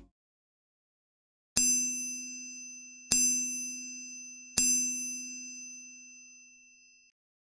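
Notification-bell ding sound effect struck three times, about a second and a half apart, each ringing out and fading slowly.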